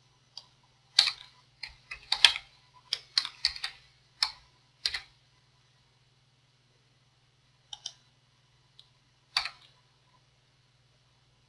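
Computer keyboard and mouse clicks: a quick run of clicks and keystrokes over the first five seconds, then a few single clicks, over a faint steady low hum.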